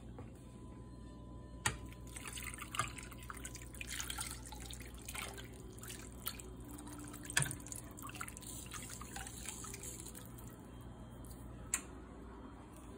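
Thick sauce poured from a glass bowl into a stainless steel frying pan, splashing and dripping unevenly over the food for several seconds, with a few sharp clicks along the way.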